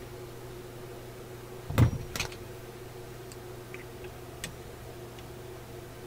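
A hand tool set down on a workbench: one loud knock about two seconds in, a smaller clatter just after, then a few faint clicks, all over a steady low electrical hum.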